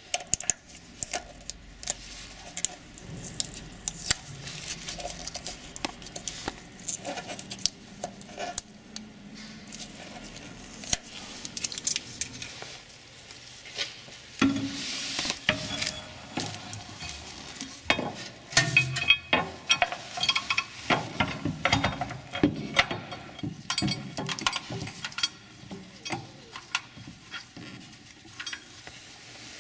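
Repeated metallic clinks, knocks and scraping from hitch parts and bolts being handled and fitted to the underbody rail by hand. The clatter is busiest a little past the middle.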